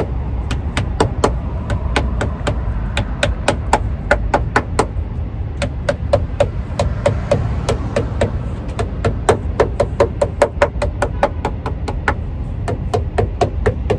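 Pliers clicking against the metal-cored rubber edge trim on a car door as it is pressed onto the door edge: a quick run of sharp taps, about three a second, with short pauses. A steady low rumble runs underneath.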